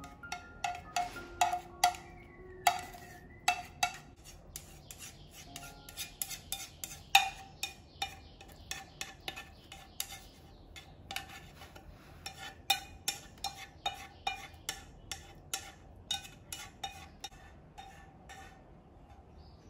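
A kitchen utensil scraping and tapping the inside of a saucepan while porridge is emptied onto a plate: a long run of sharp clinks, a few a second, each with a short ring.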